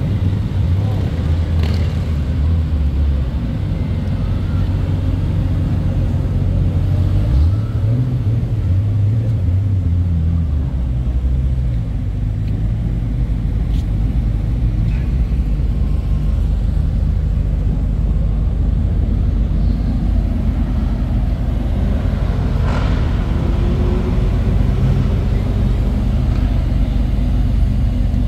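Sports car engines running with a heavy, steady low rumble, their pitch shifting now and then, and a short rising rev about four-fifths of the way through.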